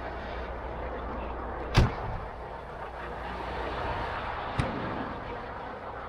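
Two sharp knocks over a steady rumbling background noise, the first and loudest nearly two seconds in, the second about a second and a half before the end.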